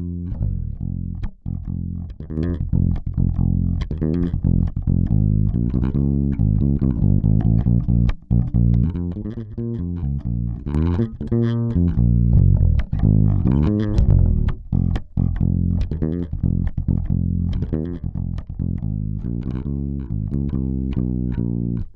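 A plucked bass line with guitar, a music track running through a Great River PWM-501 500-series compressor as a demonstration of its compression.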